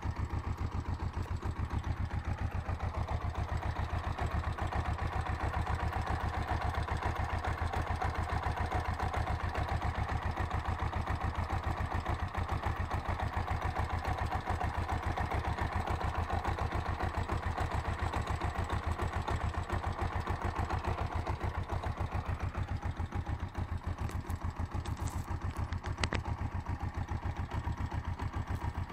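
Kawasaki GPZ500's parallel-twin engine idling with an even pulsing beat, carrying a knock that the owner places in the gearbox, cause unknown. A single sharp click near the end.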